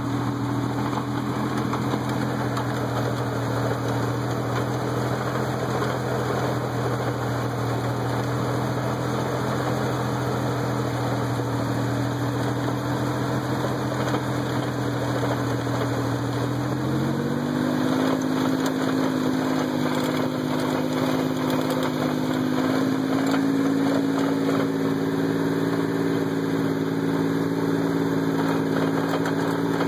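Four-wheel-drive vehicle's engine running steadily, then speeding up slightly about 17 seconds in and holding at the higher speed.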